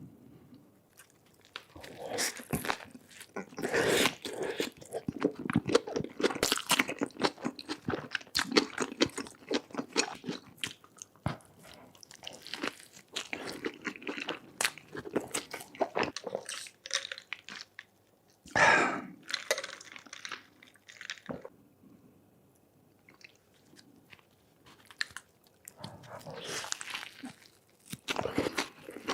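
Close-miked chewing and crunching of a burger: dense crisp crunches and wet mouth clicks, easing off to a quieter stretch about three-quarters through before picking up again.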